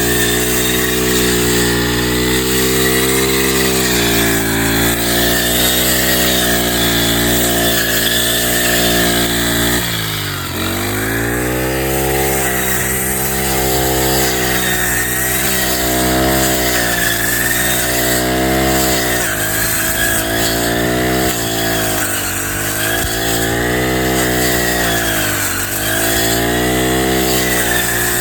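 Kamassu G435T 35.8 cc four-stroke brush cutter engine running at high speed with its blade cutting grass. About ten seconds in the engine note drops sharply and climbs back, and it dips briefly a few more times later, as its speed sags and recovers under the blade's load.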